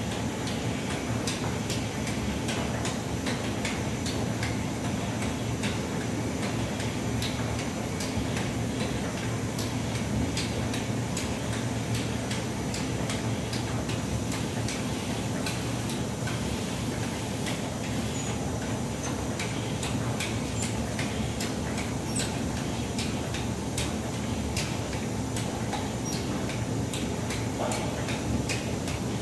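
Refurbished Simonazzi rotary bottle filler running with no bottles: a steady mechanical hum with many quick, regular clicks from its turning carousel and star wheels.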